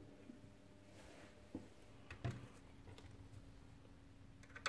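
Near silence: room tone with a faint steady hum and a few faint small clicks.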